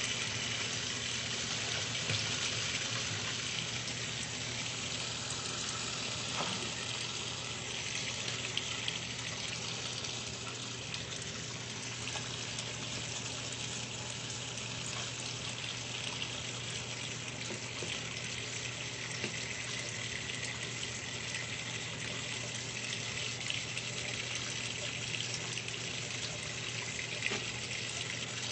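Water running and splashing steadily in a top-load washing machine, over a constant low hum.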